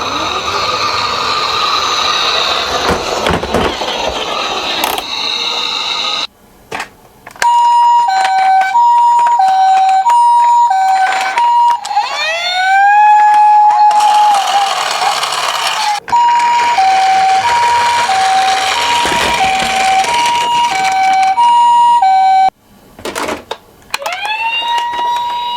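Electronic siren of a toy ambulance minicar, heard through its small speaker: the Japanese ambulance hi-lo two-tone, switching tones about every half second. It is broken twice by a rising wail that levels off and holds. The first six seconds hold a rougher, noisier sound before the siren starts.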